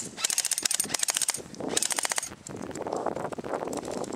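Airsoft guns firing rapid full-auto bursts, three quick strings of sharp clicks in the first two seconds or so, with a softer rattle of play after.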